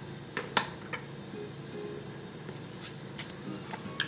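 Quiet background music with steady low tones, over a few sharp clinks and taps of kitchen utensils and spice containers on steel bowls; the loudest clink comes about half a second in, with another near the end.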